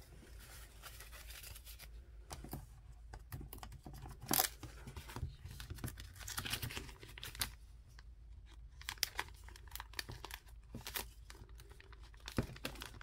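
Paper banknotes rustling and a clear plastic cash envelope crinkling as bills are handled and slid in and out of it, with scattered sharp crackles; the loudest crackle comes about four seconds in.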